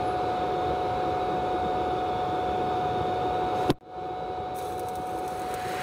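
Welding arc hissing steadily, with a constant high whine running through it; a single sharp click about three and a half seconds in, after which the hiss carries on a little quieter.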